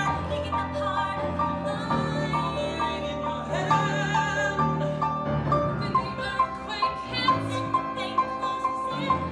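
Voices singing a musical-theatre number over an accompaniment that repeats a short note about three times a second.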